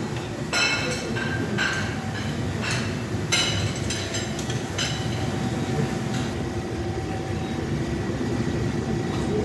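Restaurant room noise: a steady low rumble of air handling and distant murmur, with about five short clinks of crockery and metal serving utensils in the first five seconds.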